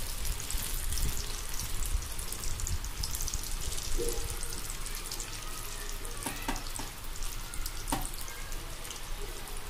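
Batter-coated chickpeas deep-frying in hot mustard oil in a kadai: the oil bubbles and crackles steadily as more pieces are dropped in by hand. A couple of sharp clicks come about two thirds of the way through.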